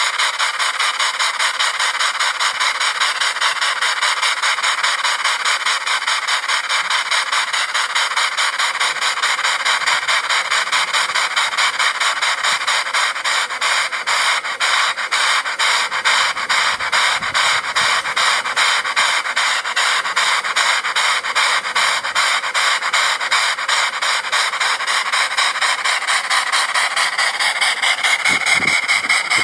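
Model steam engine running under its governor, its exhaust hissing in quick, even beats. A steady high tone comes in near the end.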